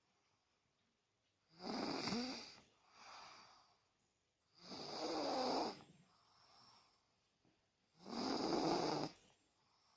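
Young child, about three years old, snoring very loudly, like an adult. There are three loud snoring breaths about three seconds apart, each followed by a softer breath out.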